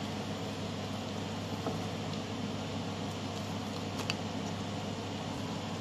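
Steady hum and rushing air of a kitchen range hood fan, with a couple of faint clicks about 1.5 and 4 seconds in.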